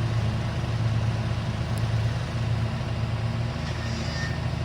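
Farm tractor engine running steadily with a low, fast chugging as the tractor moves off in second gear.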